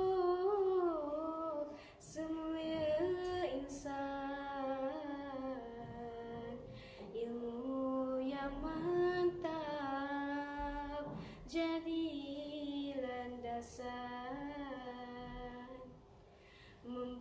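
A girl singing a Malay syair unaccompanied, holding long ornamented notes that waver and slide between pitches. Short breaks come between phrases, and there is a brief pause near the end.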